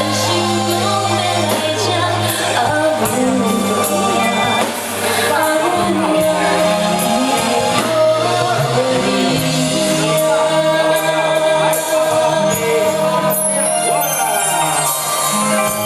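Live band music with a woman singing a Hokkien pop song over a steady bass line.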